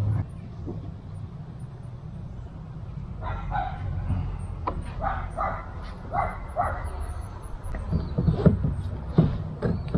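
A dog whining and yipping in short repeated calls, starting about three seconds in.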